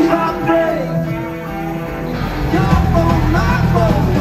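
Live rock band playing: electric guitar and a sung vocal line. The band gets fuller and louder, with heavier low end, about two seconds in.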